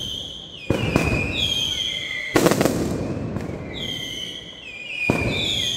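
Mascletà firecrackers going off: three heavy bangs a couple of seconds apart over a rumbling crackle. High whistles from whistling fireworks slide down in pitch between and over the bangs.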